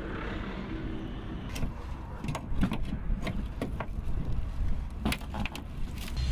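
Irregular metallic knocks and clanks of tools working on a wrecked car's body, about a dozen scattered sharp hits, over a low steady hum.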